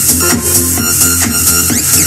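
Loud electronic dance music with a steady beat and heavy bass.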